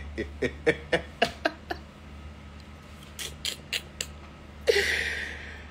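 A man's laughter tailing off in short pulses over the first couple of seconds, then a handful of sharp clicks and a short breathy hiss near the end, over a steady low hum.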